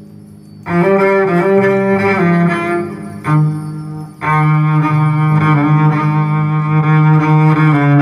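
Recorded jazz in which a bowed low string instrument plays long sustained melody notes. It comes in loud just under a second in and breaks off briefly twice, around the third and fourth seconds.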